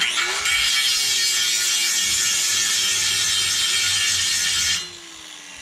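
Angle grinder grinding metal: a loud, steady, harsh hiss of the disc on the metal for almost five seconds, grinding a lip down flush. It cuts off near the end and the motor winds down with a falling tone.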